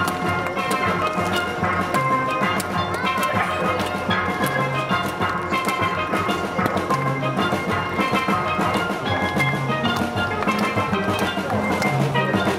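Steel pan band playing: quick ringing pitched notes from the pans over a steady beat, with low notes recurring every couple of seconds.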